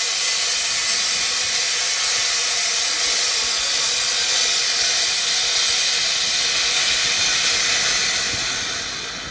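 Compressed air hissing out of an LCD bubble remover's pressure chamber as it vents at the end of its cycle. The loud, steady hiss tapers off near the end.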